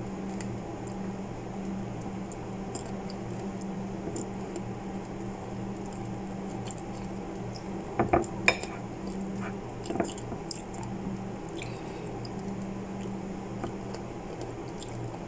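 Knife and fruit knocking and clinking against a ceramic bowl while fruit is peeled by hand: three sharp knocks close together about eight seconds in and two more about two seconds later, with small soft clicks of peeling between them. A steady low hum runs underneath.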